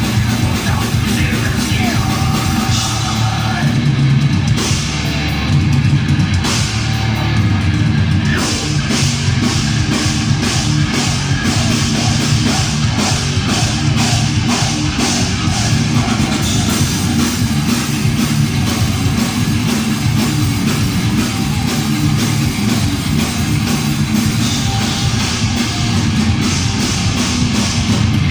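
Thrash metal band playing live at full volume: heavily distorted guitars and bass over a fast drum beat, with cymbal crashes a few seconds in.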